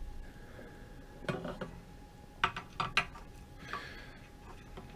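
Light metallic clicks and clinks of hand tools and small metal parts being handled and set down on a workbench, in two short clusters about a second and a half in and again around three seconds in.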